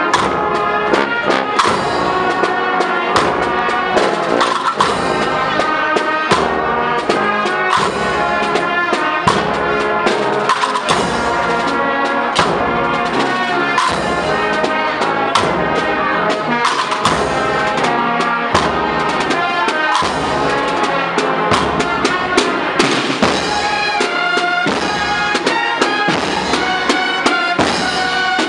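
A Spanish Holy Week processional band (agrupación musical) playing a march: brass melody over steady drumbeats.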